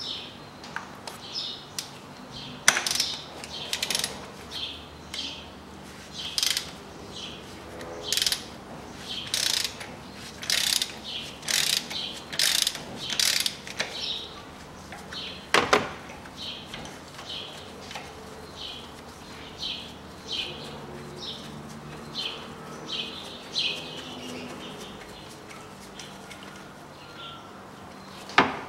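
Ratchet wrench on a long extension clicking in short repeated strokes while a spark plug is worked loose or out of its well. There are two sharp metallic knocks, one about halfway through and one near the end.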